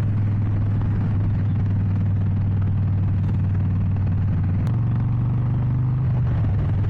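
Harley-Davidson Sportster XL 883 Iron's air-cooled V-twin engine running steadily while riding. About two-thirds in there is a click and the engine note steps up a little, settling back near the end.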